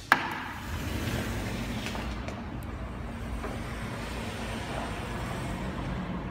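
A sharp knock right at the start, then a steady outdoor rush of distant road traffic and wind on the microphone.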